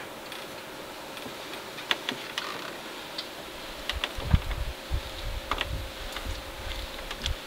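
Scattered sharp clicks and ticks, with a run of soft low thumps in the second half.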